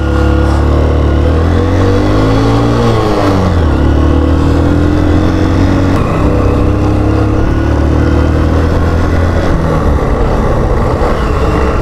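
Motorcycle engine running as the bike rides along, steady and loud. About three seconds in, the engine note drops and then climbs back up.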